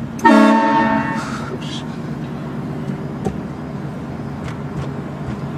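A train horn blasts once about a quarter second in: a loud chord of several steady tones that fades away over about a second. A steady low hum from the vehicle runs underneath.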